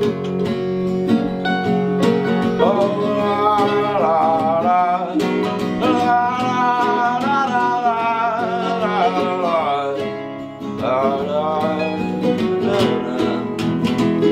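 Instrumental passage of an acoustic folk song: acoustic guitar accompaniment with a sliding, wavering melody line on top. The melody comes in about two and a half seconds in and breaks off briefly around ten seconds.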